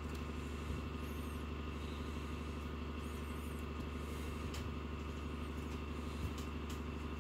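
Steady low background hum, with a few faint clicks of small parts being handled.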